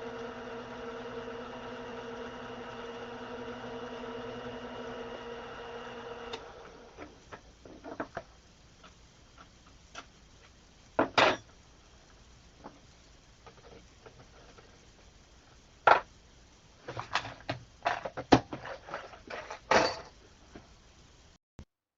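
Small metal lathe's electric motor running with a steady hum, switched off about six seconds in. Scattered metal clinks and knocks follow, like tools and parts being handled at the lathe.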